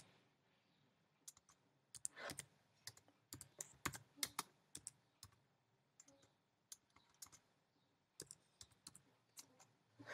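Quiet typing on a computer keyboard: irregular key clicks in two runs, the first starting about two seconds in and the second about seven seconds in.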